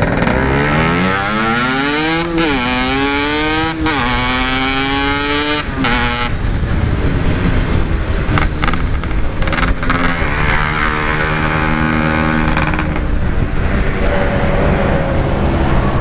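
Yamaha RX-King's single-cylinder two-stroke engine pulling hard through the gears. Its note rises, then drops sharply at each of three quick upshifts in the first six seconds, and it settles to a steadier, lower cruise.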